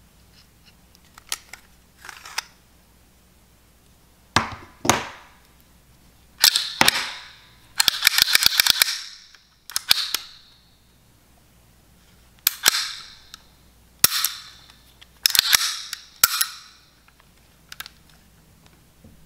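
A Bulgarian Makarov pistol being worked by hand: a dozen or so sharp metallic clacks and snaps in short groups, as the slide is pulled back and let snap forward and the parts are cycled. A dense rattle of quick clicks comes about halfway through, and a dummy round is cleared out onto the mat.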